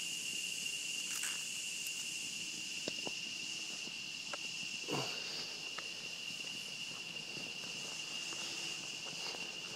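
Steady, high-pitched chorus of insects: one unbroken drone with a hiss above it. A few faint footsteps and scuffs come through, the clearest about halfway.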